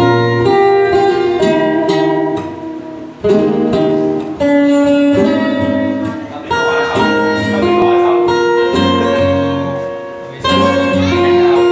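Two acoustic guitars playing a slow Vietnamese bolero intro: a picked melody line over plucked chords.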